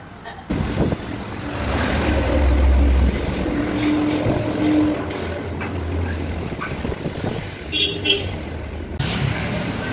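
Road traffic: vehicles passing, with a low engine rumble that is loudest two to three seconds in.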